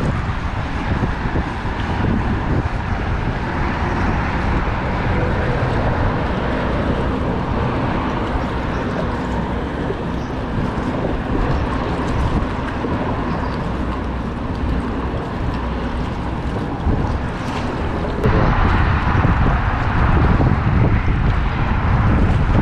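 Wind buffeting an action camera's microphone, a steady rough rumble that gets louder about three-quarters of the way through.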